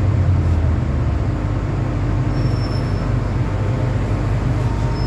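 MTR M-Train electric multiple unit running on the Island Line, a steady rumble of wheels and traction equipment. A faint high whistle comes in briefly about two and a half seconds in and again near the end.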